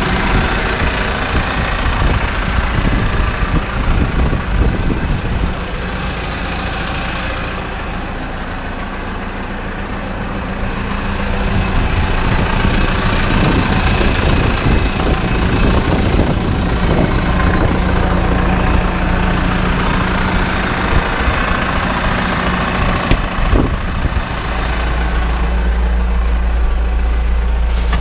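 Massey Ferguson 3709 F tractor's diesel engine idling steadily, with a fluttering low rumble over it that turns heavier and steadier near the end.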